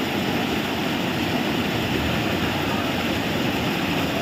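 Fast floodwater rushing steadily across a submerged road, a continuous even rush of water.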